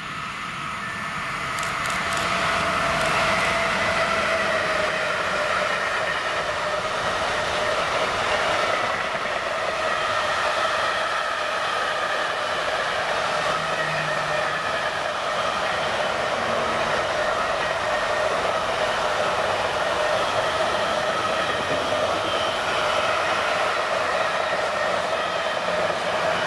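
A container freight train hauled by a Siemens Vectron electric locomotive passing. It grows louder over the first few seconds, then holds as a steady rolling noise of the wagons on the rails, with steady whining tones over it.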